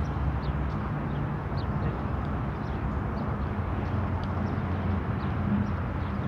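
Steady low vehicle rumble, with faint short high chirps scattered through it.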